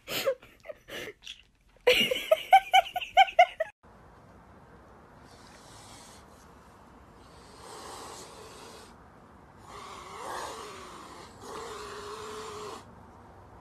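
A loud laughing voice for the first few seconds. Then mute swans hiss at a cat four times, each hiss about a second long.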